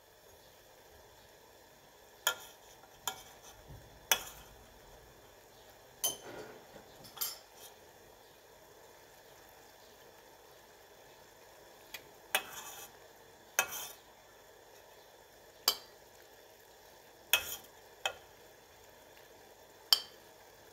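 Metal spoons clinking sharply against a china plate about a dozen times, over the faint steady bubbling of sugar syrup at a rolling boil.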